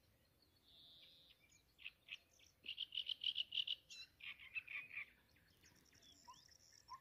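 A small bird singing fast, chattering runs of high notes. Near the end a frog starts croaking in short calls.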